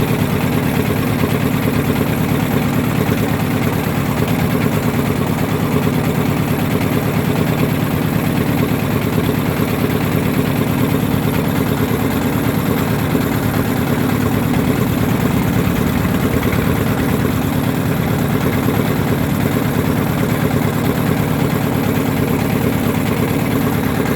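A boat's engine running steadily at an even speed, with no change in pitch.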